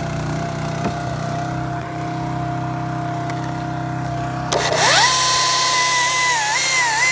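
An engine idles with a steady low hum. About four and a half seconds in, a battery chainsaw spins up with a quickly rising electric whine, then its pitch dips and wavers as the chain works through a cut in dead birch wood.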